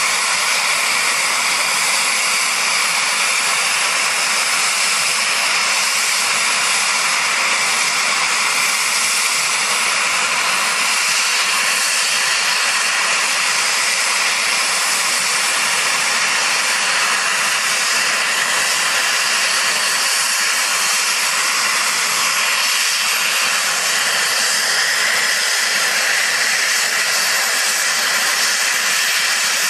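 UH-60JA helicopter's turbine engines running on the ground during start-up: a steady high whine over a loud rushing hiss, unchanging throughout.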